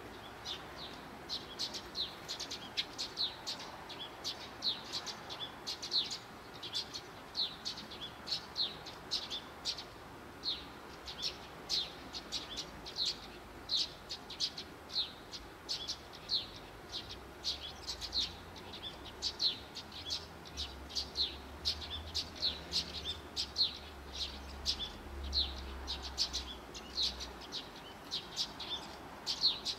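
Eurasian tree sparrows chirping: short, high chirps repeated several times a second without a break.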